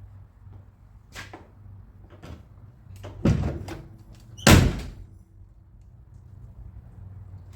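Car door being shut on its freshly rebuilt latch: a few light clicks, then two loud slams about a second apart, the second the loudest.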